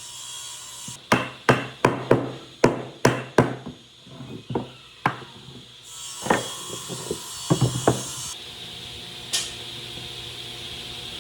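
Hammer blows on wood: a quick run of about eight strikes in the first few seconds, then a few scattered knocks. From about eight seconds in, a steady scraping noise takes over.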